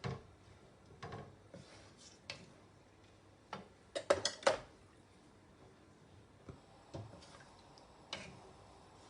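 A spoon knocking and scraping against a cooking pot while stirring washed rice and water together: a series of irregular light clicks and knocks, with a quick cluster of them about four seconds in.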